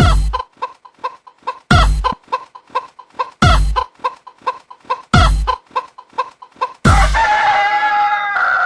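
Music track with a heavy bass drum hit about every 1.7 seconds under rapid, evenly spaced short cluck-like notes. Near the end comes a long, crow-like call that slides down in pitch.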